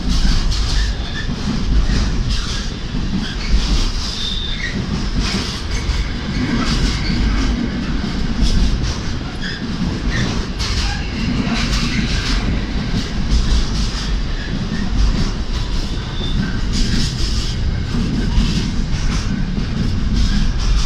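Container wagons of a freight train passing close by: a steady heavy rumble with wheels clacking over rail joints and a few brief high wheel squeals.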